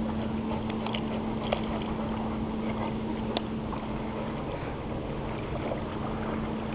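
Dogs wading and swimming in shallow water, heard as a steady wash of water and wind noise with a constant low hum underneath and two sharp clicks, about a second and a half and three and a half seconds in.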